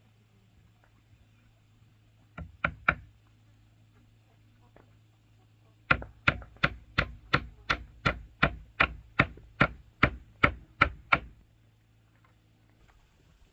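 Sharp, repeated strikes of a hand tool: three close together about two and a half seconds in, then an even run of about fifteen, roughly three a second, from about six to eleven seconds in.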